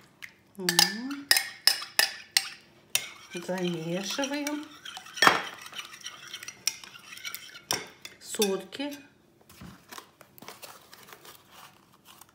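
Metal spoon stirring kefir batter in a glass bowl, clinking sharply and irregularly against the glass, with the loudest clink about five seconds in.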